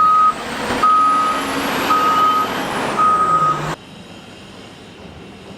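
A bulldozer's reversing alarm beeping four times, about one beep a second at one steady pitch, over the machine's running engine; the sound cuts off abruptly near four seconds in, leaving a faint steady background.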